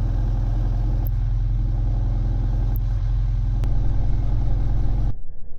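Classic Mini MPI's four-cylinder A-series engine idling steadily with a low, even running note. The sound cuts off suddenly near the end.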